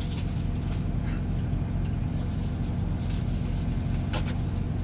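Steady low drone of an idling diesel truck engine heard inside the sleeper cab. Near the end come a couple of soft crinkles from a paper towel being folded.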